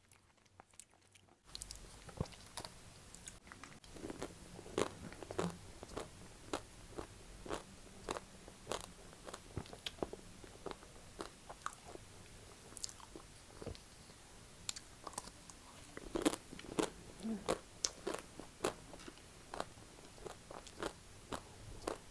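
Close-up eating sounds of chocolate-coated ice cream: crunchy bites through the coating and wet chewing, starting about a second and a half in, with irregular sharp crunches throughout.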